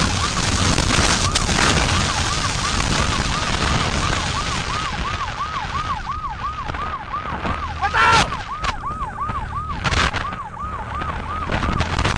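Police siren wailing in a fast yelp, about three rising-and-falling sweeps a second, over steady road and wind noise from the pursuing vehicle. A couple of short, loud bursts cut through about two-thirds of the way in.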